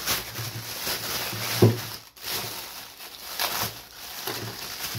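Clear plastic bag crinkling and rustling as it is handled and pulled off a part, with a louder rustle about one and a half seconds in.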